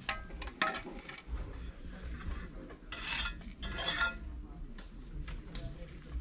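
A series of rough scraping strokes on a hard surface, the two longest and loudest about three and four seconds in.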